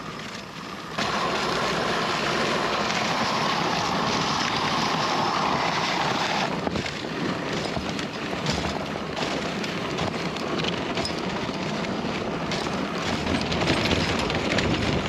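Dog sled runners sliding and scraping over snow on a fast downhill run, with wind noise on the microphone. The sound gets much louder about a second in and stays steady after that.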